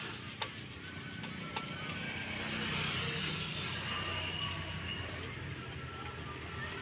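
Thin crepe batter sizzling on a hot flat griddle as it is spread out with a metal scraper, the sizzle swelling from about two seconds in. A few sharp clicks of the metal scraper or ladle against the plate come in the first couple of seconds.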